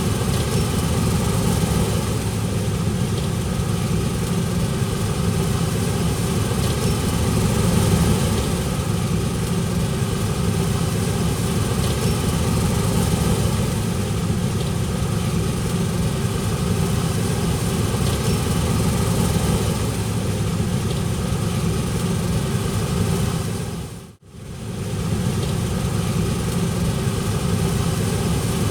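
Heavy diesel farm machinery engine running steadily, with a brief fade out and back in about three-quarters of the way through.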